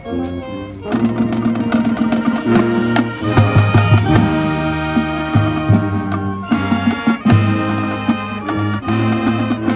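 High school marching band playing its field show, brass with drums and percussion, building to full band about a second in.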